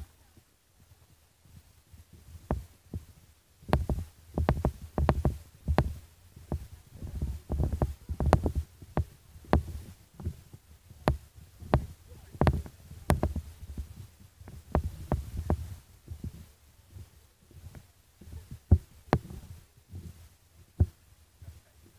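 Irregular deep thumps and sharp clicks from the camera being handled and jostled on its microphone, about two a second at their busiest in the middle stretch.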